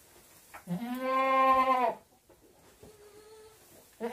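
Goat bleating: one long, loud bleat of about a second, a fainter, higher bleat a little later, and another loud bleat starting near the end.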